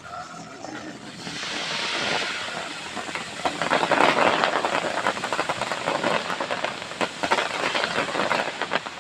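Fireworks: a hiss swells about a second in, then dense crackling takes over from about three and a half seconds, many quick pops running together.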